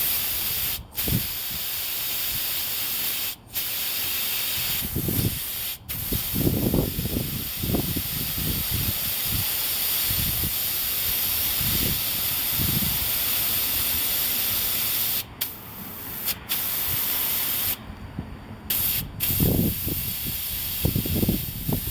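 Air hissing out of a truck tire through the inflator gun's deflate button on the valve stem. The hiss is steady but cuts out briefly several times as the button is let go and pressed again. The tire is being deflated slowly.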